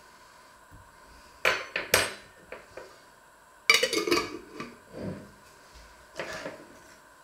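Kitchen items being handled and set down on a wooden worktop and cutting board: two sharp clatters, a longer rattling clatter a few seconds in, then lighter knocks.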